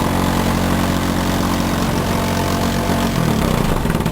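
A motor running steadily: a low, even hum with a hiss above it, the hum shifting about three seconds in.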